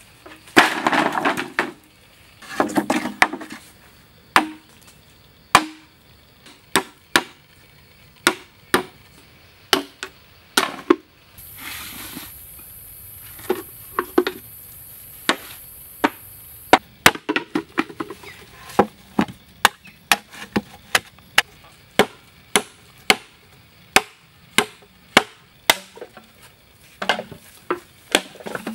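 Long green bamboo poles clattering as they are dropped, twice near the start, then a steady series of sharp chops as green bamboo is cut into short lengths on a wooden log, about one to two strokes a second.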